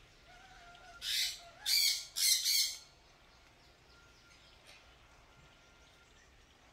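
Four harsh, rasping animal calls in quick succession, starting about a second in.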